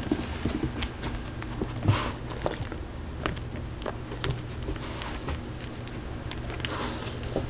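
Scattered small taps and rustles of a kitten scuffling and rolling on a person's lap against denim, over a low steady hum.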